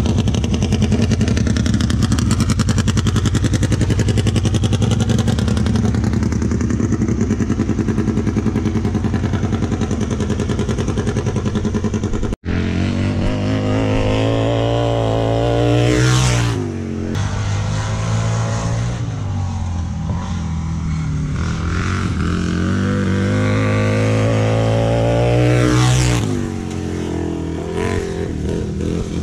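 Racing lawn mower engine running steadily close by. After a cut about 12 seconds in, a racing lawn mower lapping a dirt oval passes twice about ten seconds apart, each time getting louder and dropping in pitch as it goes by.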